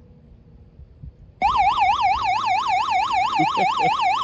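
Built-in SOS alarm of a multi-purpose emergency lantern radio sounding: a loud electronic siren that switches on abruptly about a second and a half in and warbles rapidly up and down in pitch.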